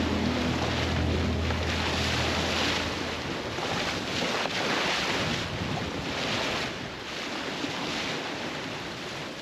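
Wind rushing over the microphone and sea water washing along the hull of a sailing yacht under way in a swell, rising and falling in repeated surges.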